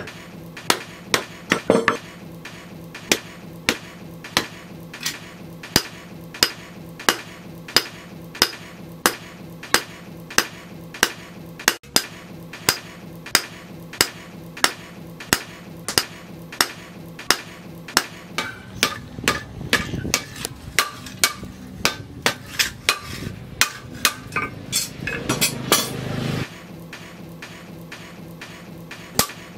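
Hand hammer striking a red-hot leaf-spring knife blank on a steel anvil in a steady rhythm of about two blows a second, each a sharp ringing clang.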